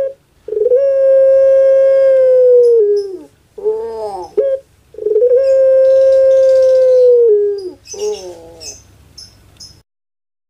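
Puter pelung (Barbary dove) calling twice: each call opens with short curved notes, then holds one long, even note for about two seconds that drops in pitch at the end, with a shorter note following near the end.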